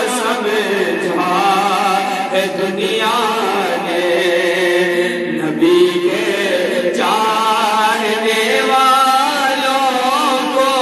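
A man singing an Urdu naat solo into a handheld microphone, drawn-out phrases with wavering ornamented notes.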